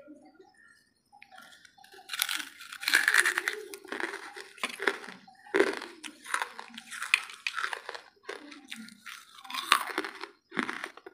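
A person chewing hard, ash-coated wood charcoal close to the microphone. A dense run of sharp crunches starts about two seconds in.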